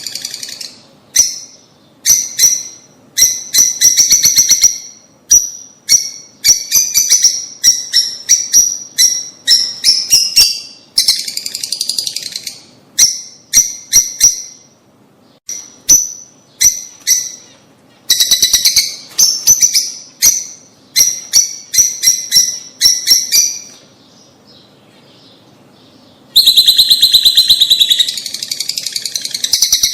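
Lovebirds (Agapornis) chirping in quick bursts of shrill, high chirps, one after another, with a short lull about three-quarters of the way through before a loud burst resumes.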